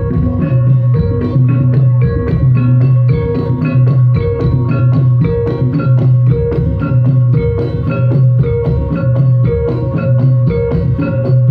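Javanese gamelan playing jaranan music: saron metallophones struck with wooden mallets in a fast, even run of notes over a low note that repeats steadily.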